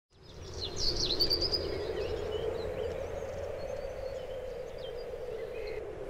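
Birds chirping and trilling over a steady rushing forest ambience, fading in at the start; the chirps are busiest in the first couple of seconds and then thin out to scattered calls.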